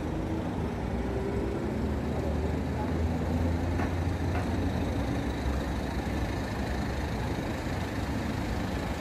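City street traffic: vehicle engines running with a steady low rumble that swells a little around the middle.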